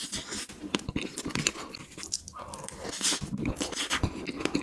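A person chewing a mouthful of soft strawberry cream cake, with wet mouth and lip-smacking sounds in quick, irregular clicks.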